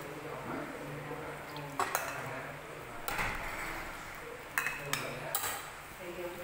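A ladle clinking against a stainless steel soup pot as soup is ladled out into a bowl: several sharp metallic clinks with short ringing, three of them in quick succession near the end.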